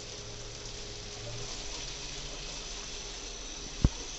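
Bathtub tap running with a steady hiss of water. A single sharp knock near the end.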